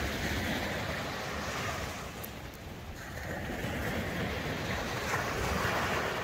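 Surf breaking and washing up a sandy beach, swelling, easing off, then swelling again.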